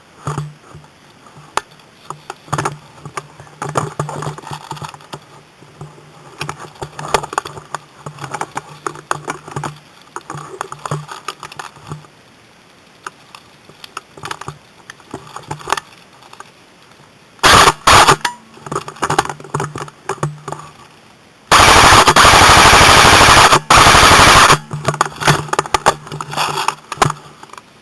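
Airsoft gun firing on full auto, picked up by a camera mounted on the gun: a short burst about two-thirds of the way in, then a longer burst of about three seconds, very loud and close. Between bursts there are scattered clicks and rubbing from hands gripping the gun.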